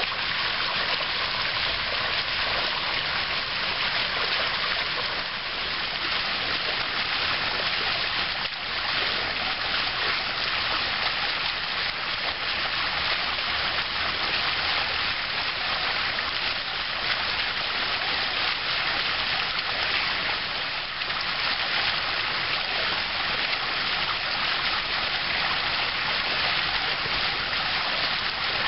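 Water jet splashing steadily into a shallow concrete pool, a constant rushing hiss that does not change.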